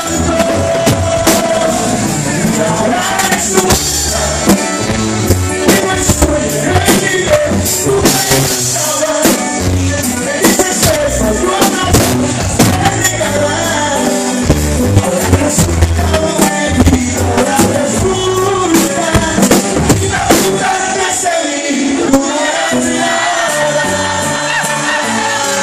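Live norteño corrido music: an accordion leading over guitar and drums, with a man singing over the band.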